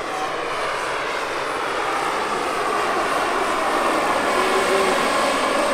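Large turbine-powered RC scale helicopters, a Bell JetRanger and a Bell 429, flying overhead: a steady turbine whine mixed with rotor noise, getting gradually louder.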